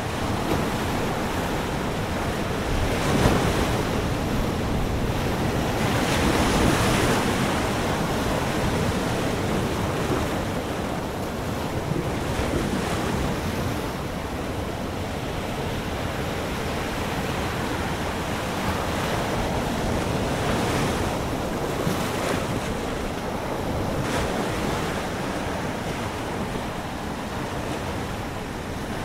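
Ocean surf breaking and washing up the beach in a steady rush that swells louder a few times, with wind buffeting the microphone.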